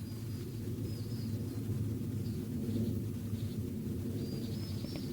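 Woodland ambience: a steady low rumble with faint, scattered bird chirps.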